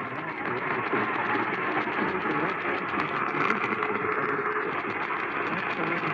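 Radio static: a steady, muffled hiss from a radio receiver with no clear programme coming through.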